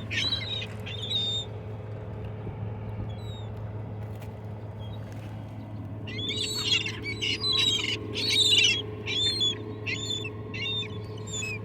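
A flock of seagulls calling and squawking: a few calls at the start, then a dense run of repeated calls through the second half. A steady low hum runs underneath.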